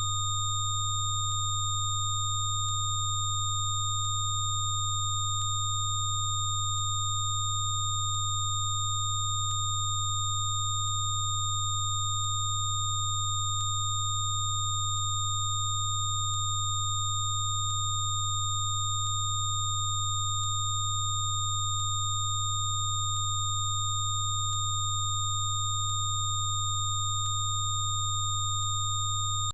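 Synthesized Rife-frequency sine tones held steady: a loud low tone with several fainter high-pitched tones layered over it, none changing in pitch or level.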